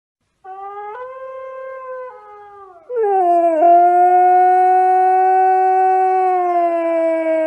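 Husky howling: a quieter, wavering howl first, then about three seconds in a louder, long, steady howl that sinks slightly in pitch near the end.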